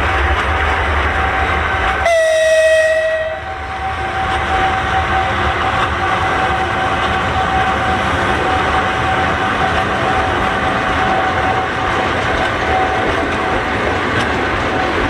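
2ES10 electric locomotive rolling past at the head of a freight train: steady rumble of wheels on rail with a constant thin whine. One short horn blast sounds about two seconds in and lasts just over a second.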